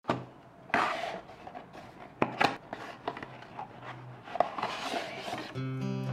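Objects being handled in a small room: a series of knocks and clicks with some rubbing, over a steady low hum. Soft background music comes in near the end.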